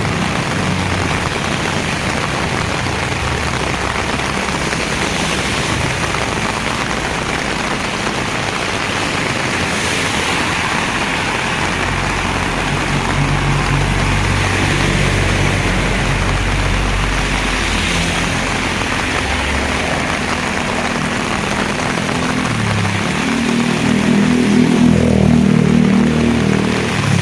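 Heavy rain falling steadily, with the low hum of a motor engine running underneath that grows louder near the end.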